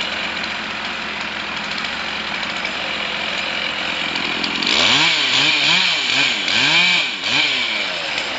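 Two-stroke chainsaw running steadily, then revved up and down about four times from about five seconds in as it cuts into the base of a carved dead-ash trunk.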